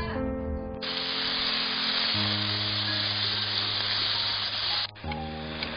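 Beef chunks sizzling as they sear in a frying pan. The sizzle starts abruptly about a second in and cuts off suddenly near the end, over background music with steady held notes.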